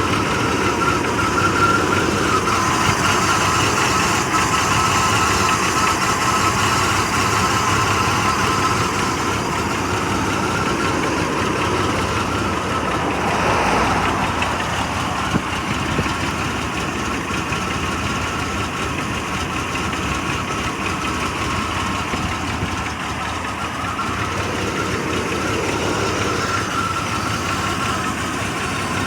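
Chevrolet Blazer engine idling roughly, a steady running sound that swells briefly about halfway through. The unsteady idle is the fault the owner is trying to trace.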